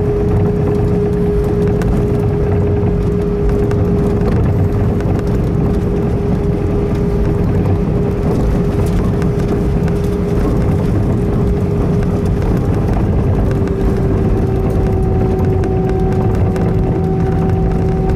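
Airbus A320 taxiing, heard inside the cabin: a steady low rumble of the idling engines and airframe with a constant whine over it. About fourteen seconds in the whine dips a little in pitch and a fainter, higher tone joins it.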